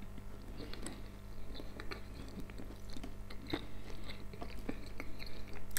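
A person chewing a mouthful of boiled homemade meat dumplings (pelmeni), close to the microphone: soft, irregular wet mouth clicks. A faint steady electrical hum lies underneath.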